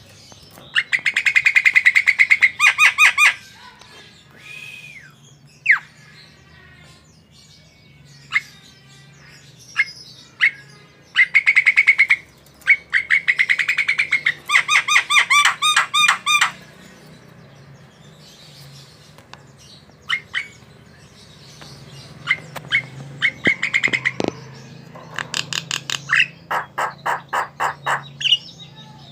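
Javan myna (jalak kebo) singing: loud trains of rapidly repeated harsh notes, broken up by single short whistled calls.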